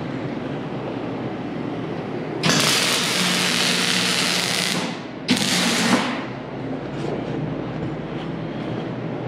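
MIG welding arc crackling and hissing on steel in two bursts: a weld of about two and a half seconds, then a short tack of under a second.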